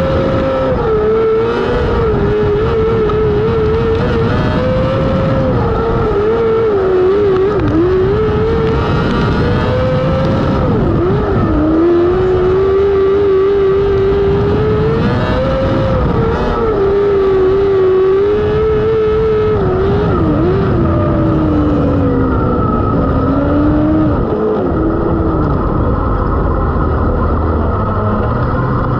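Non-wing micro sprint car's 600cc motorcycle engine at racing speed on a dirt oval, its pitch rising and falling repeatedly as the throttle comes on and off, over a constant rumble.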